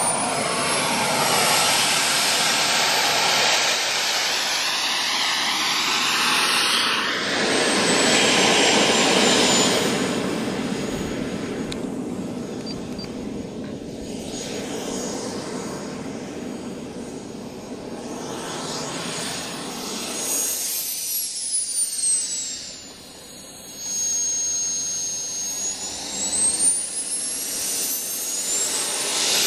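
Radio-controlled Hawker Hunter model jet's engine whining and hissing as it taxis across grass. It runs loudest for the first ten seconds or so, then quieter. Its high whine falls in pitch a little after twenty seconds and rises again near the end.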